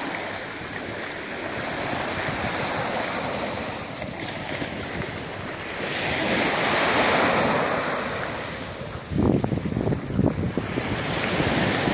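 Small waves washing up and breaking on a sandy shore in a steady wash of surf that swells about six seconds in. From about nine seconds, wind buffets the microphone in gusts.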